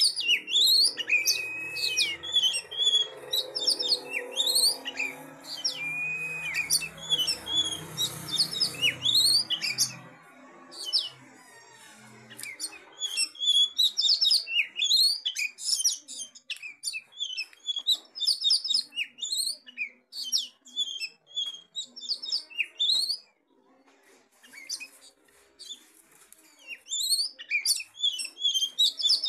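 Oriental magpie-robin (kacer) singing: a few sliding whistles near the start, then dense runs of quick high chirps and trills, with short pauses about ten and twenty seconds in. It is a lure song meant to make other magpie-robins answer.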